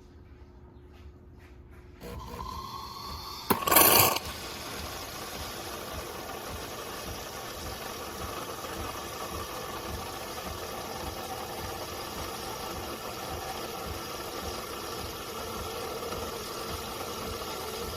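A machine switching on about two seconds in: a motor hum starts and rises slightly, a loud short burst of noise follows about a second and a half later, and then it settles into a steady running hum. The source is most likely the De'Longhi Magnifica Start espresso machine running one of its cycles.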